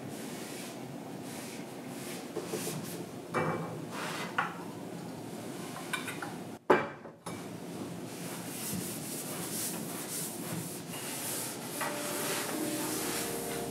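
Small cloth or tissue rubbing over a hard surface, in quiet room noise, with a few light knocks and one sharp click about halfway through.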